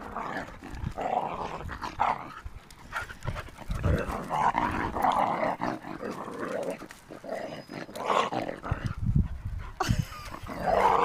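Two dogs play-growling as they wrestle and chase each other, in irregular bursts.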